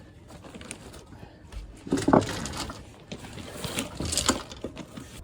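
Irregular knocks and scrapes of a steel foundation strut being worked into its bracket, loudest about two seconds in. The strut is cut a little too tight.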